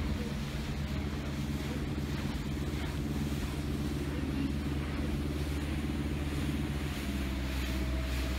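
Motorboat engine running steadily, a low even hum; its lowest note shifts slightly about seven seconds in.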